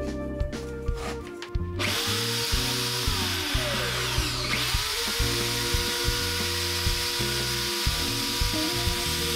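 Corded electric drill starting up about two seconds in and running unloaded with an empty chuck; its whine dips in pitch and climbs back up around the middle. Background music plays throughout.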